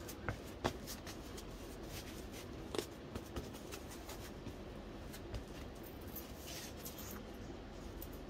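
Paper handling: book pages rustling and rubbing as they are pasted and pressed onto cardboard packaging, with a few short clicks and taps.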